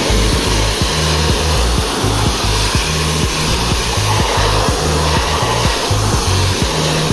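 Pressure washer spraying with a steady hiss, over background music with a bass line and a regular beat.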